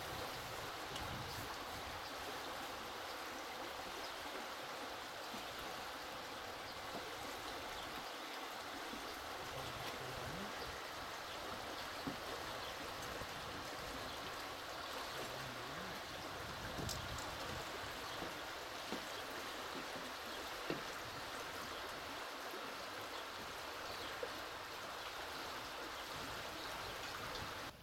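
Steady, even rushing of flowing water, like a stream, unbroken throughout.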